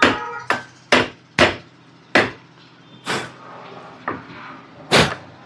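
Hammer blows on a wooden block, driving the pulley onto a car AC compressor's shaft: about eight sharp knocks, spaced half a second to a second apart.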